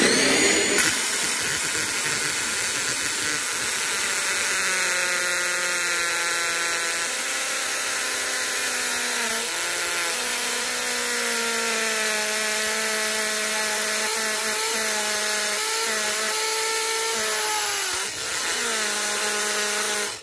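Power drill running a step drill bit through a stainless steel bucket wall: a continuous grinding whine with a squealing tone that wavers in pitch as the bit works through the tough metal. It eases briefly about 18 seconds in and cuts off at the end.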